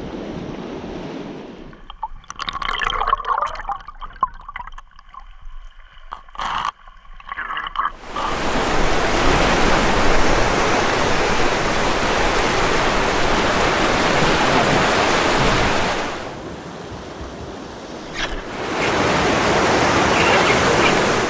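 Ocean surf washing against shoreline rocks: a loud, steady rush of water that eases off briefly and then swells again near the end.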